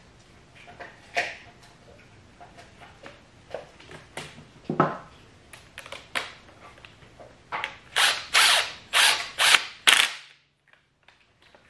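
Scattered metal clicks and taps of hand-fitting the timing-belt idler roller bolt, then a cordless power driver run in five short bursts about half a second apart, driving the bolt home, cutting off suddenly.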